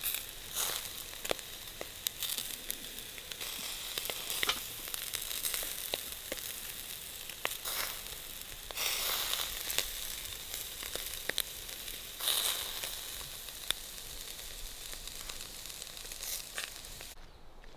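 Fishing reel being wound in and a small fish handled after a bite on a feeder rod: a crackling hiss full of scattered sharp clicks, with a few louder bursts.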